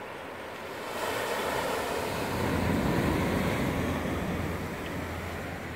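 Ocean surf breaking on a rocky shoreline: a wave swells up about a second in and washes out, easing off near the end.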